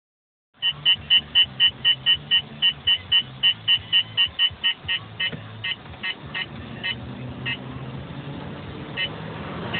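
Valentine One radar detector beeping, about four beeps a second at first, slowing after about five seconds to single beeps a second or more apart. This is a false laser alert set off by the third brake light of the Trailblazer ahead.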